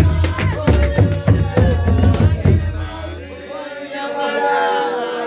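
Group singing of a Xhosa traditional chant over a steady drum beat. The drumming stops about three seconds in, leaving the voices singing on held notes.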